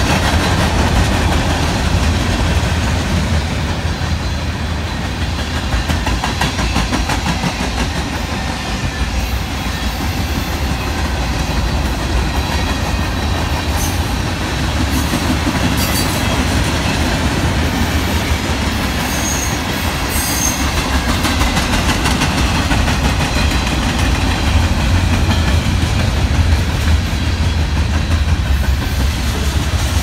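Freight train cars rolling past close by: a steady, loud rumble of steel wheels on the rails.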